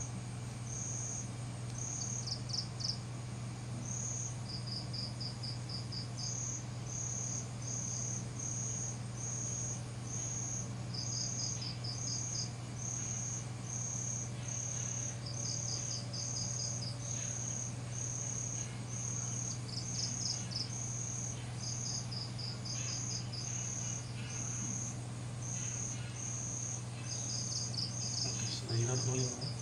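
Crickets and other night insects calling: one repeats a short high chirp at a steady pace, about three every two seconds, while a second breaks in every few seconds with quick rapid trills. A steady low hum runs underneath.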